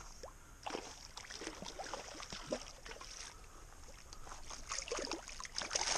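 A hooked largemouth bass splashing and swirling at the surface close to the bank: faint, irregular splashes.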